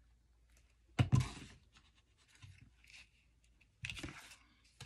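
Paper and craft tools handled on a cutting mat: a sudden knock with a short rustle about a second in, then a brief scratchy rustle of paper a little before the end.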